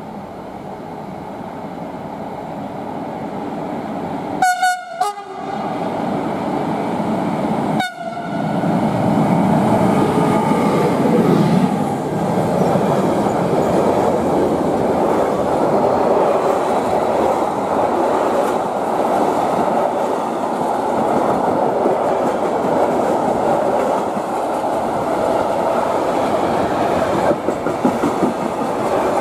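A train approaching and passing through, growing louder over the first few seconds. Its horn sounds in short blasts about four to five seconds in and again about eight seconds in, then a long steady rumble and clatter of the wheels on the rails.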